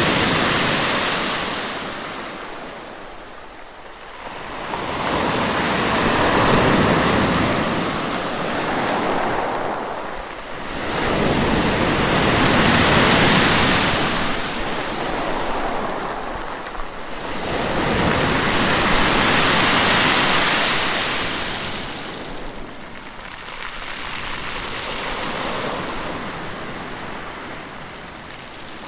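Ocean waves surging in and drawing back in slow swells, each one rising and fading over roughly six to seven seconds.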